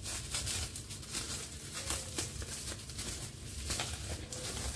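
Clear plastic wrap crinkling and crackling as raw meat is handled and pulled out of it by hand: many quick, irregular crackles.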